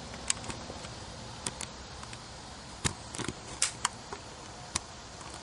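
Handling noise: a scattered series of about ten short, sharp clicks and clacks, several close together around the middle.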